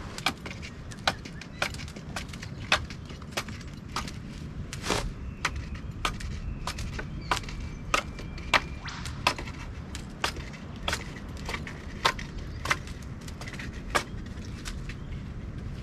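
Repeated sharp knocks of a blade cutting into a wooden stick, unevenly spaced at about two strokes a second, as a spear is being shaped from the stick.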